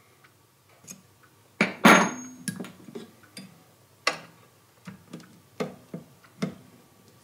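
Hand pop-rivet gun setting a rivet that holds a rubber lever boot to a steel bracket: a string of sharp metal clicks and clacks as the tool is fitted onto the rivet and its handles are squeezed. The loudest clack comes about two seconds in.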